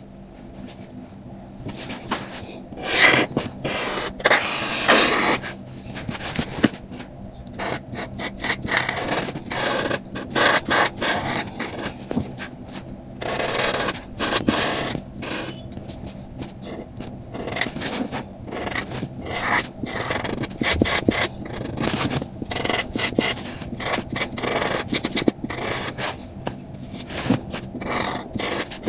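A drawing tool scratching and rubbing across paper in repeated strokes, coming in uneven bursts of one to two seconds with short pauses between them.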